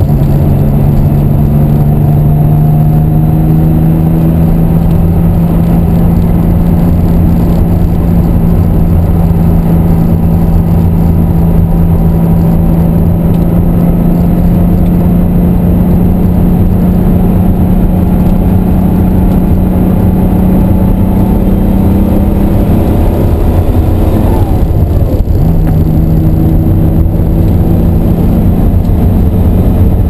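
Inside the cabin of a 1988 RUF CTR 'Yellow Bird', its twin-turbo flat-six is pulling hard on track over a constant low rumble. The engine note climbs slowly for most of the time, dips briefly about three-quarters of the way through at a shift or lift, then holds steady.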